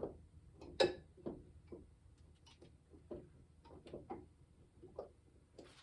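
Light, irregular clicks and knocks of a metal hand crank drill being hung by a wire loop on a nail on the wall, the sharpest knock about a second in.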